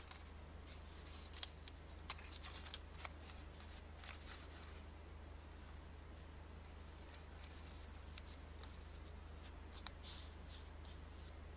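Russian 2000-ruble banknote being folded and creased by hand: crisp crinkles and snaps of the stiff paper, busiest in the first few seconds and again near the end, over a low steady hum.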